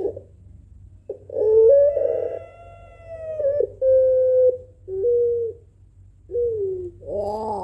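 Puter pelung, a domestic ringneck (Barbary) dove, cooing: one long coo of about two and a half seconds that steps in pitch, then a run of shorter coos.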